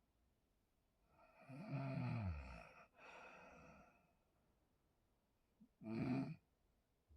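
A sleeping person snoring: a long snore about a second and a half in whose pitch falls, then a breathy out-breath, and a short snore near the end.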